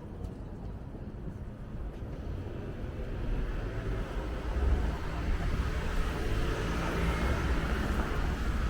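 Road traffic on a city street: a steady low rumble, with a passing vehicle's noise growing louder from about three seconds in.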